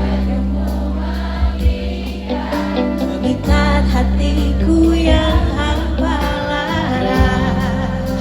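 Live concert music: a band with strong sustained bass notes under singing voices that hold and bend their notes.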